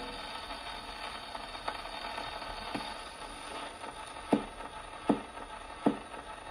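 Steel needle of a Victor Victrola acoustic phonograph riding the run-out groove of a shellac 78 rpm record after the music has ended. There is a steady surface hiss and a sharp click about every three-quarters of a second, once per turn of the record. The clicks grow louder in the second half.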